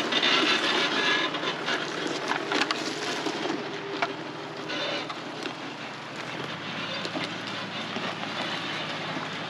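Toyota 80 series Land Cruiser crawling slowly over a rocky riverside track: a steady engine and tyre rumble with scattered sharp clicks and cracks of loose stones under the tyres. It grows fainter in the second half as the vehicle moves away.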